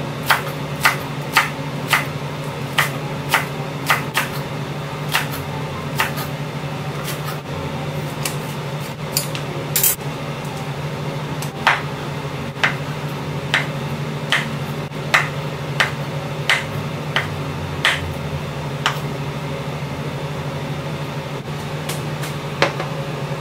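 Light clicks and taps of kitchen utensils against dishes or a work surface, irregular, about one a second, over a steady low hum.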